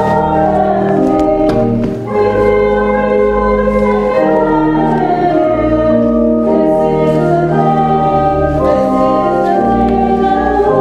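A choir singing a hymn with organ accompaniment, in held, slow-changing chords.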